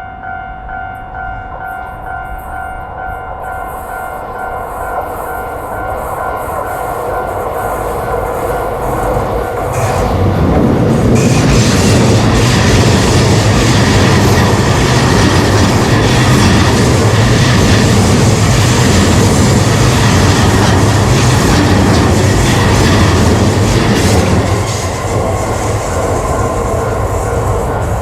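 Railroad crossing warning bell ringing in a steady repeating pattern as a JR Joban Line train approaches, the rail noise building, then the train passes at full loudness from about ten seconds in. The passing noise drops off sharply about fourteen seconds later, leaving the bell ringing.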